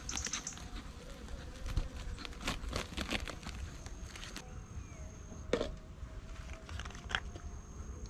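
Honeybees buzzing over an open hive, with short puffs from a bellows bee smoker and scattered clicks and rustles as the hive cover is handled.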